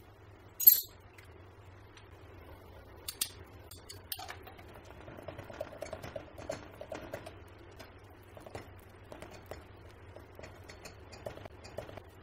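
Wire whisk clinking and scraping against a stainless steel double-boiler bowl as oil and lye are stirred into soap batter. A single sharp knock comes about a second in, then a run of quick small clicks from about four seconds on, over a low steady hum.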